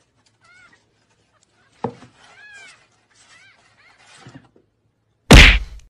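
A kitten gives several faint, high, short mews that rise and fall in pitch. There is a single knock about two seconds in, and a loud, sudden burst of noise near the end.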